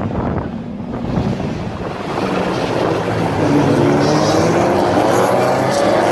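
A pack of 1600-class rallycross cars accelerating off the start, several engines revving up with rising pitch and growing louder from about two seconds in. Wind buffets the microphone before the engines build.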